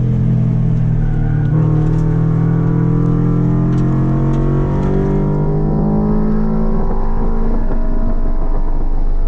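2022 Subaru BRZ's 2.4-litre flat-four running through MXP aftermarket headers and exhaust, heard from inside the cabin. It holds a fairly steady note for the first half, then revs up steadily under acceleration for the last few seconds.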